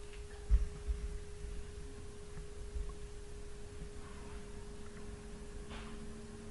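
Steady electrical hum, with a second, lower hum joining about four seconds in and a couple of soft low thumps about half a second and a second in.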